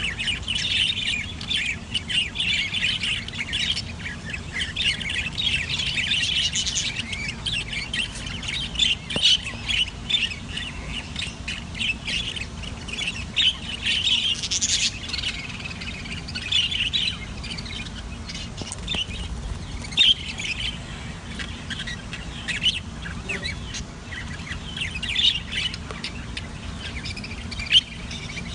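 Several budgerigars chattering without pause: many overlapping high chirps and warbles, with a few sharper, louder squawks standing out.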